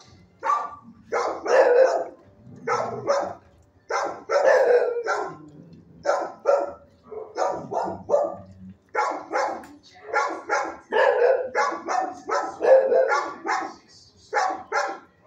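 Several shelter dogs in neighboring kennels barking over and over, barks following each other a few per second with only brief lulls.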